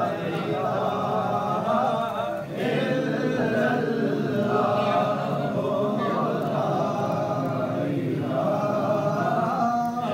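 Several male voices chanting together in long held notes, with two short breaks for breath.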